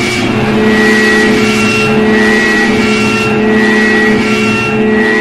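Loud, distorted music: a sustained low drone under a repeating figure of short high notes.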